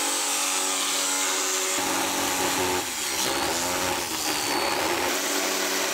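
Corded electric jigsaw running steadily as its blade saws through the thin sheet-metal wall of a chimney ceiling support box.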